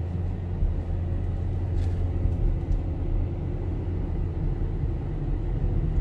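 Steady low rumble of a car driving, engine and tyre noise heard from inside the cabin.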